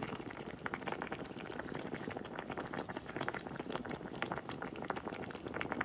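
Pot of homemade tomato sauce boiling on the stove: a steady crackle of bubbles popping.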